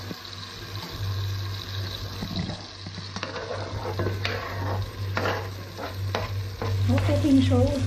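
Tomatoes sizzling as they sauté in a pot, under a steady low hum. From about three seconds in, chopped red onions are scraped off a cutting board into the pot with a spatula, adding irregular knocks and scrapes.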